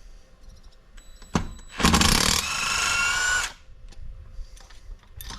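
A power tool runs in one burst of about a second and a half, its motor pitch rising slightly as it spins, while loosening a cylinder head bolt on the engine. A sharp click comes just before it.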